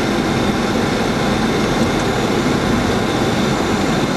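Steady cockpit noise of a Boeing 737-700 on approach: an even rush of airflow and engine noise inside the flight deck, with a few faint steady tones in it.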